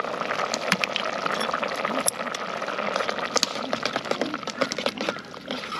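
Pot of zosui, rice and egg in leftover hot-pot broth, bubbling as it simmers, with scattered light clicks.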